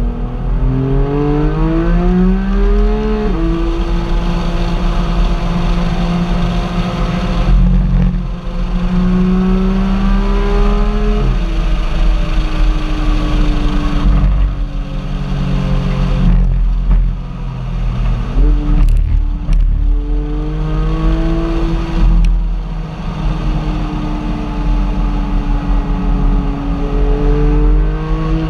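Car engine pulling under way: its note climbs in pitch several times and falls back sharply at each gear change, holding steady between.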